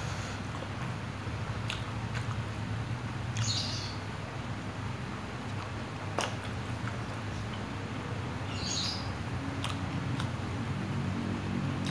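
Close-up chewing of a mouthful of fried instant noodles and spicy meatball, with wet mouth clicks and smacks. Twice, about 3.5 s and 9 s in, there is a short high squeak.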